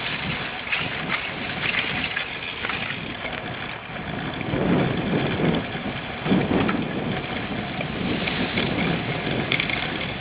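Wind buffeting the microphone of a handlebar-mounted camera on a cyclocross bike being raced over rough ground, with tyre noise and scattered knocks from the bike. A louder rumble comes about halfway through.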